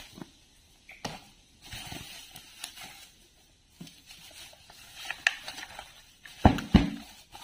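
Handling noises from a small plastic fan and its packaging being unpacked: soft rustling with scattered light clicks, and a few louder knocks near the end.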